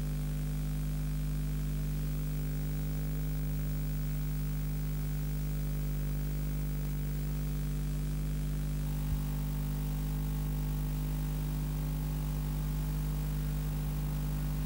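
Steady electrical mains hum with faint hiss in the audio of an old VHS recording of a TV broadcast, with no soundtrack over it. There is a single faint click about nine seconds in, and a faint high-pitched whine joins at about the same time.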